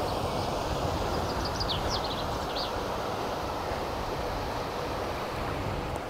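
Wind buffeting the microphone with a steady rushing and low rumbling, and a small bird chirping a quick run of short, falling notes about one to three seconds in.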